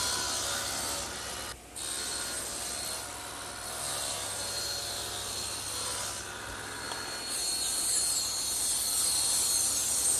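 Power tool cutting wood, running steadily while shaping a small T-molding, with a brief drop about a second and a half in.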